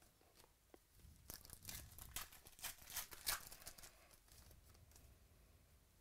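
Trading cards handled and flicked through by hand: a run of sharp crackling snaps and crinkles from about a second in to about three and a half seconds, then quieter sliding of card against card.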